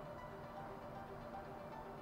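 Quiet background music, a soft melody of short notes.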